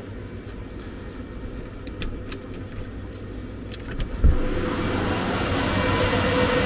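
Keys jangling and clicking in a door-knob lock, then a thump as the door opens. The steady rush of the cooling fans of the crypto-mining machines inside, an Antminer S19j Pro among them, then grows much louder, with a steady whine, the fans running at 100%.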